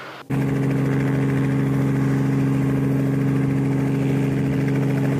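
Small piston helicopter running at a steady pitch: an unchanging hum with a strong low tone and its overtones. It starts abruptly at a cut.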